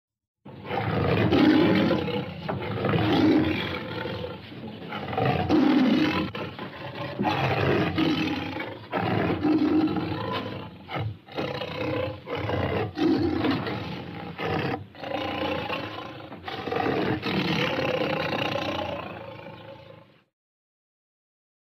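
Tiger growling: a long run of deep, rough growls in pulses of a second or two, with short gaps between them, stopping suddenly near the end.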